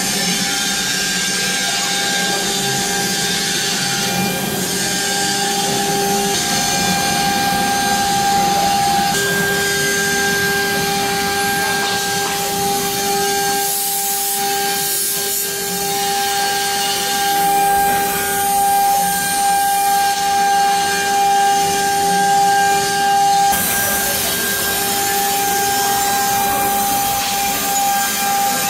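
CNC router spindle running with a steady high whine while a fine engraving bit carves a relief pattern into a wooden board, the rasp of the cut under the whine. The cutting noise swells and dips in the second half as the bit works through the pattern.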